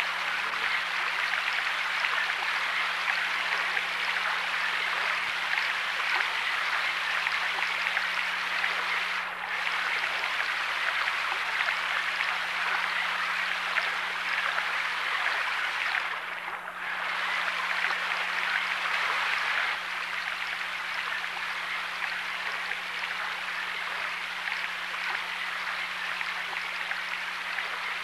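Shallow stream running over a rocky riffle: a steady rush of water, with two brief dips about nine and sixteen seconds in and a slight drop in level near twenty seconds. A faint steady hum lies underneath.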